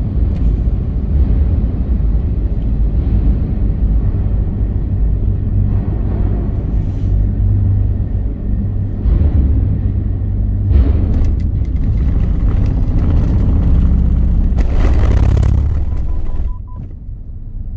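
Steady low rumble heard inside a small car, a Daihatsu Wake, as it drives slowly off a ferry's car deck. Its engine and tyres mix with the ship's hold noise. There are bursts of rattling in the second half as it rolls over the ramp onto land, and the rumble drops quieter about a second before the end.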